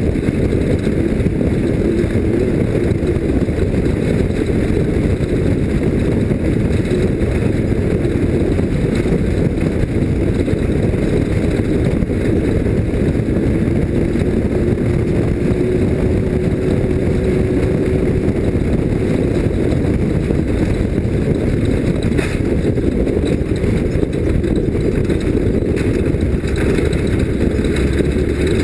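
Off-road race vehicle's engine running loud and steady at speed, with no break or let-up.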